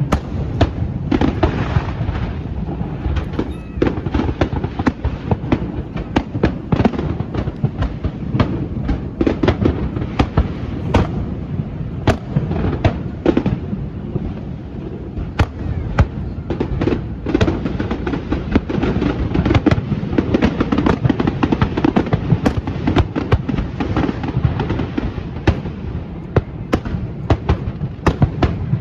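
Fireworks display: a dense, unbroken run of bangs and crackles in quick succession, several a second.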